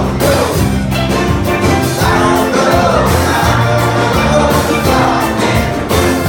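Live band playing an upbeat rock song with a steady beat, in an instrumental passage.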